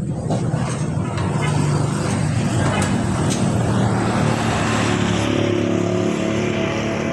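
A steady motor or engine running with a low hum that shifts a little about five seconds in, with a few light clicks over it.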